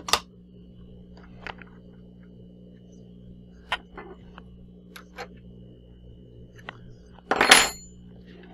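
Scattered metal clicks and clinks as a 3/8-inch end mill is fitted into a CNC mini mill's spindle during a tool change, with a louder metallic clatter about seven and a half seconds in. A low steady hum runs underneath.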